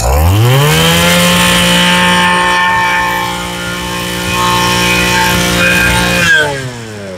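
Mitsubishi TL20 two-stroke brush cutter engine revved from idle up to full throttle. It rises quickly in pitch, holds high and steady for about five seconds, then drops back toward idle near the end.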